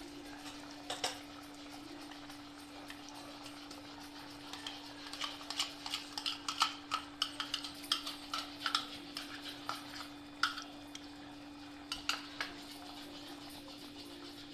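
A perforated steel spoon stirring and scraping through thick curry gravy in a kadai as fresh cream is mixed in. Scattered clicks and taps of metal on the pan come thickest from about five to eleven seconds in, over a steady hum.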